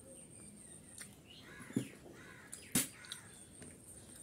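Close-up eating sounds: chewing a mouthful of rice and fish, with a few sharp mouth clicks, the loudest about two seconds in and another nearly a second later.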